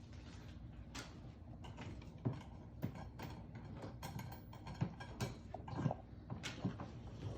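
Irregular light knocks and thumps, about eight spread over several seconds, over a low steady hum.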